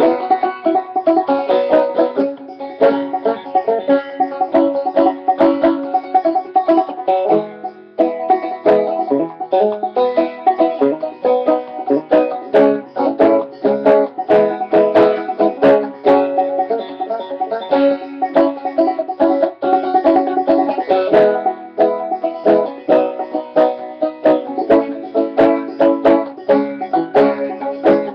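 Five-string banjo played clawhammer (frailing) style: a brisk old-time tune in sawmill tuning, with quick plucked notes and strummed brushes. There is a short break in the playing about seven and a half seconds in.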